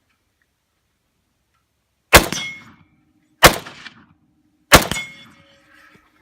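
AK-47 rifle fired three times, about a second and a quarter apart, each shot followed by a ringing tone that lingers into the next.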